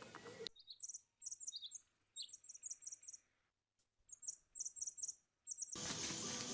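Small bird chirping: short, high chirps in quick runs, with a brief pause about halfway through. A steady noisy background comes back near the end.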